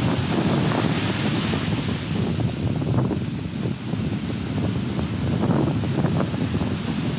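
Surf breaking and washing up a sand beach, with wind buffeting the microphone.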